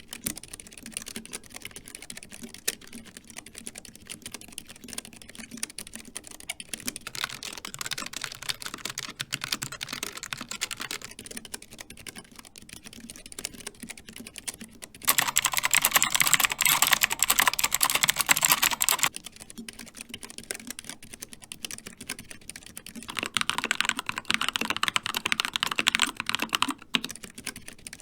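Continuous typing on a series of mechanical keyboards, one after another, the sound changing every several seconds: first the Keychron K3 with low-profile Keychron Optical Red linear switches, then the Logitech G915 with GL Linear Red switches. About fifteen seconds in it gets much louder and sharper with the clicky Outemu Blue switches of the Rapture X-Ray, then near the end the Keychron K2 with Gateron Red switches.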